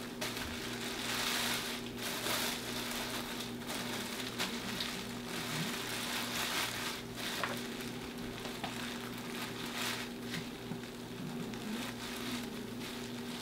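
Thin plastic bag crinkling and rustling as it is smoothed and folded by hand, in irregular crackles, over a steady low hum.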